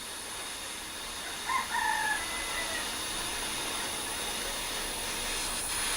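A rooster crows once, briefly, about a second and a half in. Under it runs the steady hiss of a torch flame heating the carburetor body to loosen a stuck brass inlet valve.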